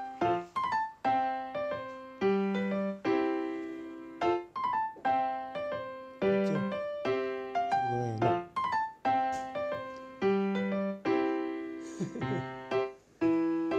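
Background piano music: notes and chords struck about once a second and left to ring out.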